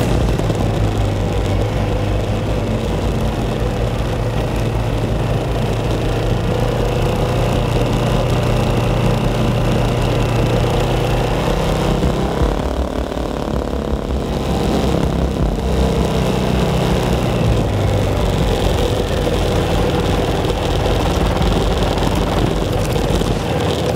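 Off-road motorcycle engine running steadily as it rides over rough ground, heard from on the bike; the engine note shifts about halfway through as the throttle changes.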